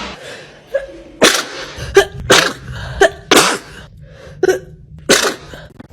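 A person sneezing again and again, about seven or eight loud, short sneezes in quick succession.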